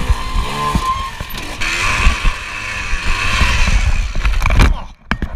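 Kawasaki KDX two-stroke dirt bike engine revving hard while the bike is wrestled upright after a crash, with knocks and thumps of handling. The sound stops suddenly near the end, followed by a few clicks.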